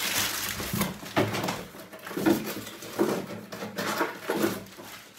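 Paper and cardboard packaging being handled: irregular rustling and crinkling, with several soft knocks as the box and packages are moved about on the table.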